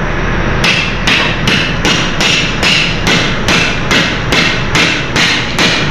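Steel combination spanner struck repeatedly against a metal container bolt seal on the door locking bar, sharp metallic clanks about three a second with a ringing tone. The seal is stuck fast and will not break.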